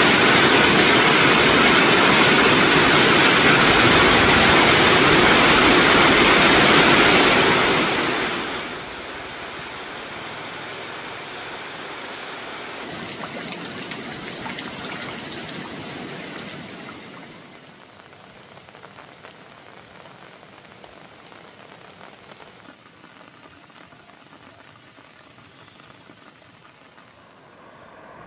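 Steady rushing water noise, loud for the first eight seconds and then dropping to a quieter hiss with a light crackle, fading lower again after about seventeen seconds. In the last five seconds a high, steady trill sounds in short stretches with brief breaks.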